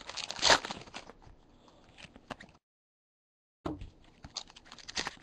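Foil wrapper of a Topps Chrome card pack crinkling and tearing open, with a sharp crunch about half a second in, then cards being handled. The sound drops out completely for about a second midway.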